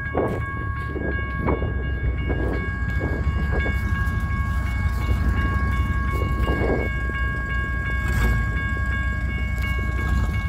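Railroad crossing bell ringing on and on as steady high tones, with the crossing falsely activated and no train coming because a gate arm is stuck on the overhead lights. A city bus's engine idles close by as a low, steady rumble.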